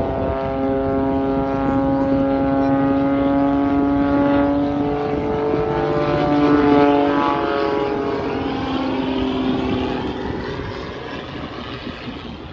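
Propeller-driven aerobatic airplane's engine and propeller droning overhead as it performs. The pitch shifts up and back down in the middle as it manoeuvres and passes, loudest about seven seconds in, then it drops lower and fades.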